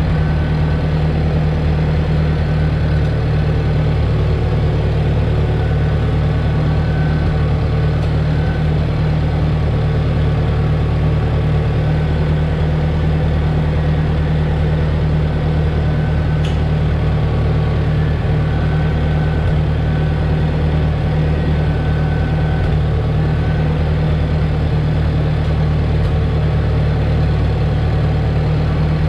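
1968 Ford 5000 tractor's four-cylinder engine idling steadily.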